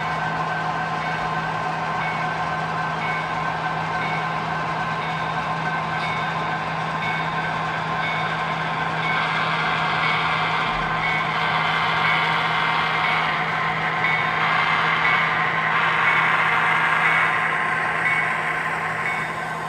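Several sound-equipped HO scale model locomotives sounding their air horns together, the chords held steadily over a low steady hum, with a short high tone repeating about once a second. About nine seconds in, more horn tones join and it grows louder, then eases off near the end.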